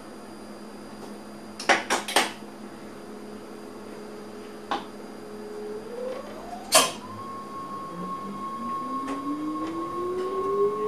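Electric train's traction equipment heard from the driver's cab as it starts to pull away: a whine climbs in pitch about six seconds in and settles into a steady high tone, then a lower whine starts rising slowly as the train gathers speed. Before that, a few sharp clicks, three close together about two seconds in and a louder single one about seven seconds in.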